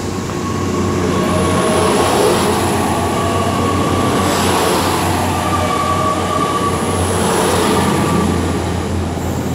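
GWR Class 800 bi-mode train departing and pulling out of the station, running on its underfloor diesel engines, with a steady whine over the train noise.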